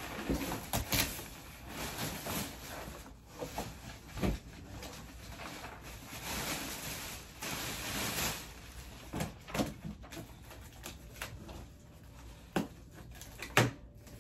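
Plastic wrapping and cardboard packaging rustling and crinkling as they are handled and pulled apart, with scattered knocks and clicks.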